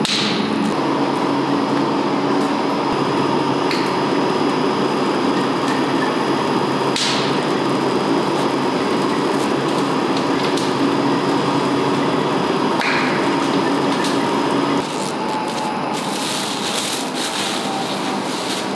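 Two-roll rubber mill running, a steady machine hum with a few brief sharp sounds. About 15 s in the hum drops a little, and near the end plastic film crinkles as it is handled.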